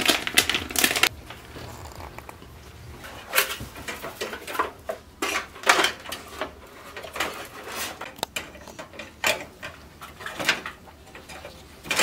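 Clicks and rattles of metal parts against a steel PC case while an expansion card is fitted into a rear slot: a quick flurry of clatter at first, then separate sharp clicks every second or so.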